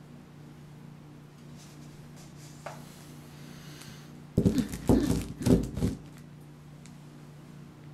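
Handling noise: a bottle standing right by the microphone is gripped and moved, giving a cluster of loud bumps and rubbing that lasts about a second and a half, over a faint steady low hum.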